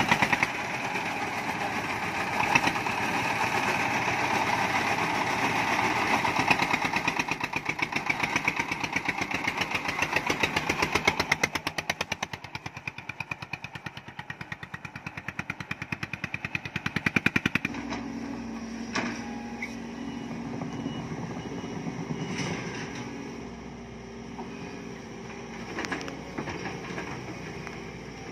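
Engine-driven mobile corn mill running loud with a fast, steady pulsing. About 18 seconds in it cuts off abruptly to the quieter steady engine hum of a Sumitomo hydraulic excavator, with a few separate knocks.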